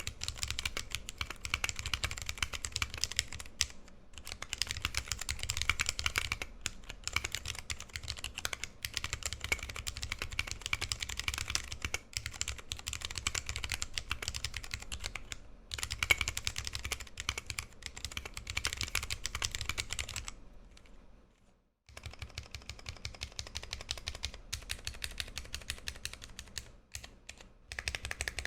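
Steady fast typing on a 60% custom keyboard with lubed vintage brown Alps switches, a brass plate and PBT keycaps: a dense run of keystroke clicks. There are a few brief breaks and one pause of about a second and a half about two-thirds of the way in.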